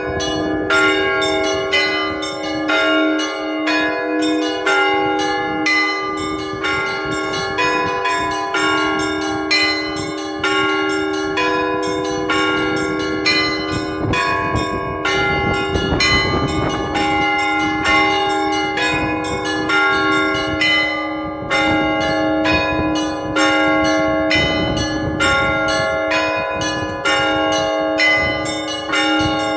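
Church bells rung by hand by a bell ringer in a fast, dense peal. Small bells are struck several times a second over a steady low hum of larger bells ringing on.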